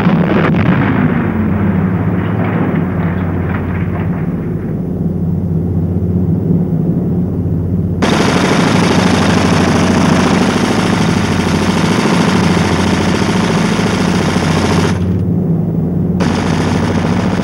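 Sustained rapid machine-gun fire over a steady low engine drone, with a falling whistle in the first two seconds. A harsher hiss joins about halfway through, cuts off, and returns near the end.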